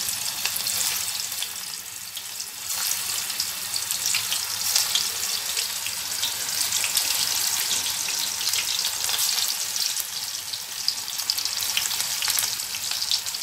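Potato kofta balls deep-frying in hot oil in a steel frying pan, a dense crackling sizzle that gets louder about two and a half seconds in.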